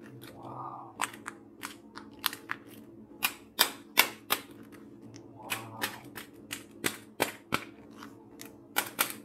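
Plastic toy battle axe being handled and knocked about on a table: a long run of sharp, irregular plastic clicks and taps, two or three a second, loudest around the fourth second.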